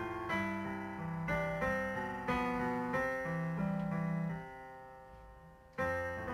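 Instrumental keyboard music, piano-like notes struck one after another and ringing down. About four seconds in the playing dies away, and it comes back strongly near the end.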